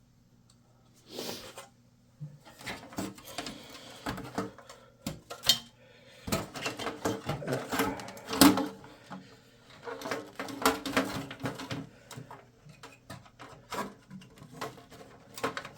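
A motherboard being worked into a computer case to test the fit: irregular clicks, knocks and scrapes of the board against the chassis, with one louder knock about halfway through.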